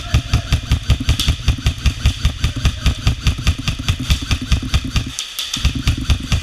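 Airsoft electric gun firing full-auto in long bursts, a fast even rattle of shots that stops for about half a second some five seconds in, then carries on.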